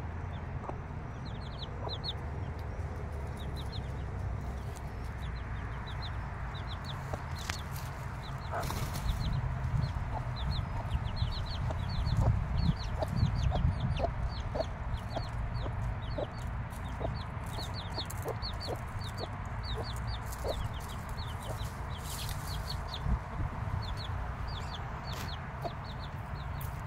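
Six-day-old chicks peeping continually, short high cheeps that slide down in pitch, several a second, mixed with the mother hen's low clucks. A low rumble swells for a few seconds about halfway through.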